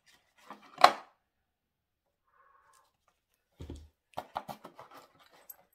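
Items being handled and set down during an unboxing: a sharp knock about a second in, a dull thump a little later, then a run of small clicks and rustles.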